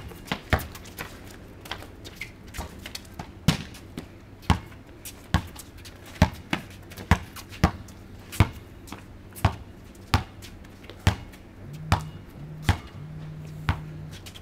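Basketball bouncing on a concrete driveway as it is dribbled, sharp bounces about one a second.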